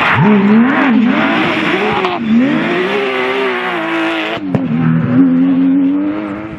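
Porsche rally car engines running hard, the pitch rising and falling with throttle and gear changes, in short clips cut together about every two seconds.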